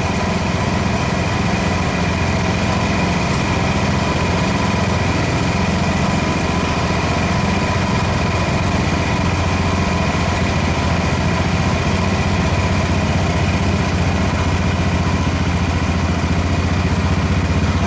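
Small single- or twin-cylinder garden tractor engine running at a steady speed.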